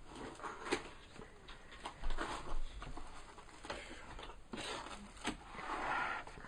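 Cardboard box being handled and opened: cardboard scraping and rustling in several short stretches, the longest near the end, with a few sharp knocks and clicks in between.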